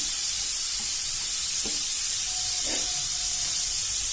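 Cauliflower florets sizzling in hot oil in a kadai, a steady hiss, with a couple of light knocks past the middle.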